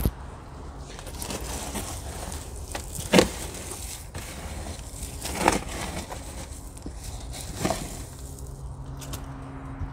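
Plastic soil scoop digging into gritty bonsai soil mix: three short crunches about two seconds apart. A low steady hum comes in near the end.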